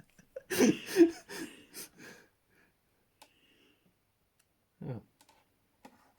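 Breathy human vocal sounds, wheezes or gasps, loud in the first two seconds, then a short falling vocal sound a little before the five-second mark.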